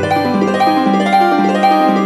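Instrumental ambient relaxation music: a melody of single notes moving in steps over a steady low held tone.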